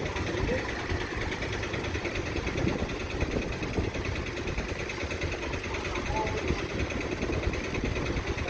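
Engine idling steadily with an even, rapid throb.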